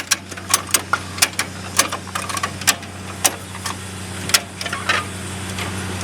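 A 4-inch ratchet strap buckle clicking repeatedly as it is cranked tight with a tightening handle: sharp, irregular clicks, a few a second. Under them runs a steady low engine hum.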